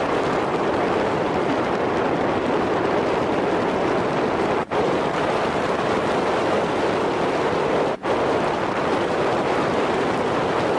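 A steady, even rushing noise, broken twice by a brief cut-off, about four and a half and eight seconds in.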